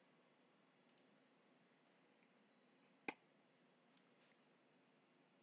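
Near silence with a single computer mouse click about three seconds in, and a few much fainter ticks.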